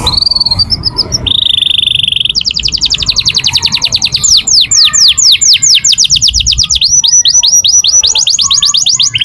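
Domestic canary singing a long song of rapid trills: a short buzzing trill about a second in, then long runs of fast repeated notes that sweep downward, changing speed and pattern several times.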